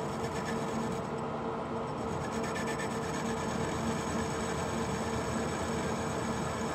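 Metal lathe running steadily with a boring bar cutting inside the bore of a gear to enlarge the hole: a continuous scraping cutting sound over the lathe's steady hum, the cutting coming in about a second in.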